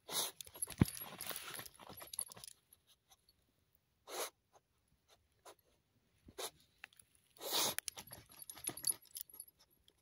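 A young jagdterrier digging into a burrow with its teeth, muzzle in the hole: a dense run of soil crunching and scraping for the first couple of seconds, then short separate bursts of scraping and breath every second or two.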